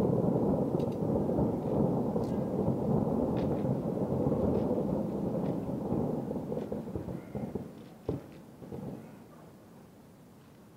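Distant fireworks going off in a rapid, unbroken barrage, heard as a dense rolling rumble. It fades out over the last few seconds, with one last sharp bang about eight seconds in.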